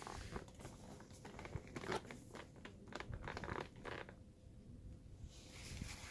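Soft rustling and crinkling of a disposable paper-and-plastic absorbent underpad being slid and smoothed under a manikin's hips, in a run of short scratchy rustles that pause about four seconds in and pick up again near the end.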